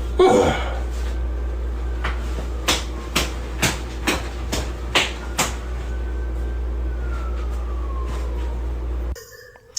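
Body-percussion beat: sharp slaps of a hand on bare skin, about two a second for a few seconds, over a steady low hum. The sound cuts off suddenly near the end.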